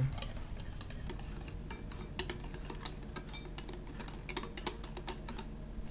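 Wire whisk stirring thin pancake batter in a glass bowl, its wires clinking against the glass in quick, irregular clicks that pick up about a second in.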